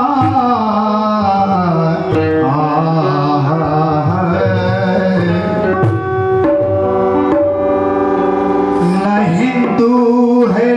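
Qawwali music: a male lead singer draws out long, wavering melodic lines over a harmonium's held notes, with a dholak hand drum. The voice bends and sweeps through the first half, steady harmonium notes come forward in the middle, and the voice glides back in near the end.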